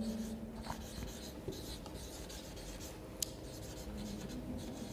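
Marker writing on a whiteboard: faint scratching in short strokes as a word is written out, with one sharper tick a little over three seconds in.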